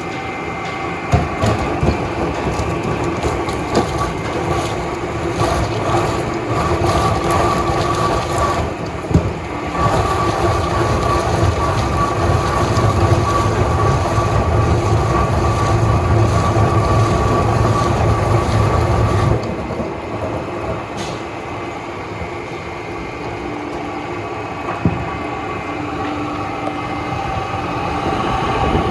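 Rotary veneer peeling machine running: a loud, steady mechanical hum with a low rumble and scattered knocks, getting quieter about two-thirds of the way through.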